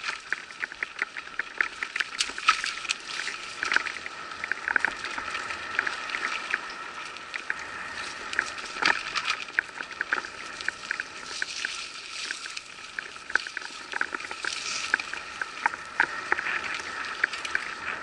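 Mountain bike riding over a rough dirt forest trail: tyre noise on dirt and leaves with frequent sharp clicks and rattles as the bike jolts over the ground.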